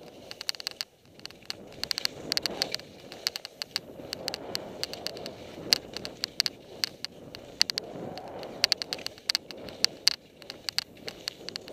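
Skis turning through soft snow, with a swelling swish every second or two, over a steady run of sharp clicks and ticks.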